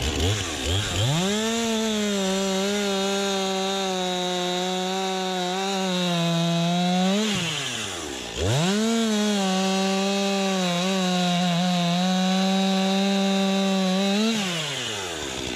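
STIHL MS261 chainsaw's 50 cc two-stroke engine bucking a log: revved up to full throttle and held steady in the cut, dropping back to idle about seven seconds in, then revved up and held through a second stretch of cutting before falling back to idle near the end.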